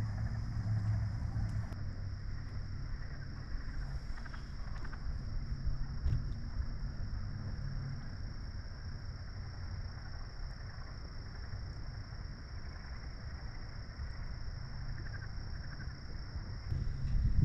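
Night-time swamp ambience: a steady high-pitched insect drone over a steady low motor hum.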